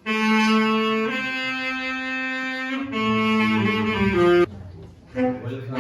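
Saxophone playing a slow melody of long held notes. A falling run of short notes ends the phrase, then a brief pause, a short note, and the next phrase begins.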